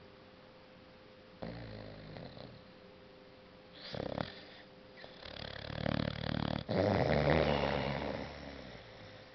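Boxer puppy snoring in deep sleep: three snoring breaths, about one and a half, four and five seconds in. The last builds up and is the longest and loudest, lasting about three seconds.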